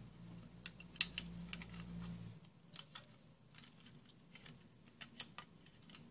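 Faint small clicks and taps of plastic parts being handled and fitted together: the green plastic housing of a solar LED search light being closed up. A faint low hum stops about two seconds in.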